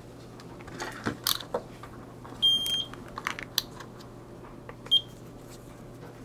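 Multimeter continuity beeper sounding as test probes touch a fuse. There is a steady high beep of about half a second roughly two and a half seconds in and a short blip near five seconds, amid small clicks and taps of the probes. The beep shows continuity: the fuse is good.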